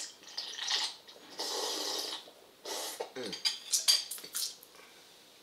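Cereal milk slurped straight from a bowl in a couple of long noisy sips, followed by several clinks of a metal spoon against the bowl.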